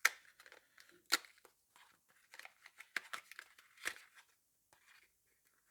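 Packaging of an APS film cartridge being torn open by hand: a run of irregular tearing, crackling and rustling sounds, with sharp crackles right at the start and about a second in.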